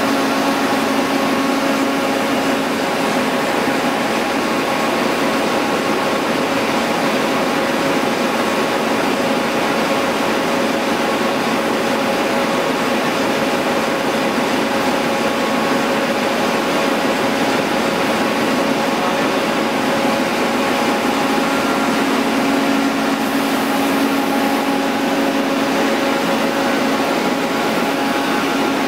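Multitec G5 web offset printing press running steadily at speed: an even machine whir with a few held humming tones, unchanging throughout.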